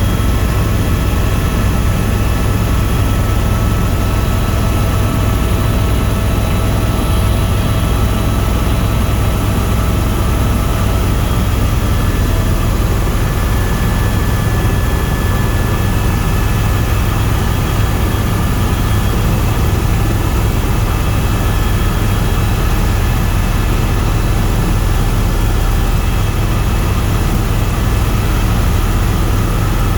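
Tour helicopter's turbine engine and rotors running steadily in flight, heard from inside the cabin. It is a loud, even drone with a deep rotor throb and a few faint steady whines above it.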